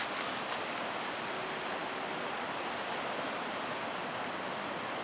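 Ocean surf breaking at Mavericks: a steady, even wash of wave noise with no distinct crashes.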